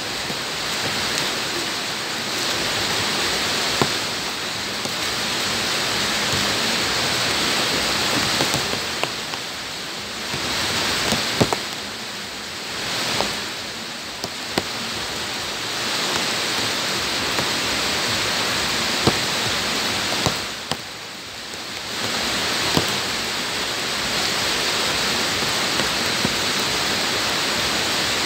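Heavy rain falling on bare ground: a steady hiss with scattered sharp drop splats, dipping briefly in loudness a few times.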